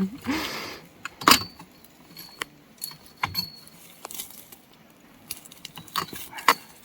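Scattered light clinks and knocks from small hard objects being handled, the loudest about a second in, some with a brief metallic ring.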